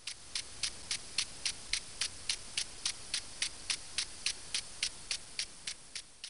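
Impact sprinkler running: the spring-loaded arm clicking at an even pace of about four ticks a second over the hiss of the water spray, slowly fading out.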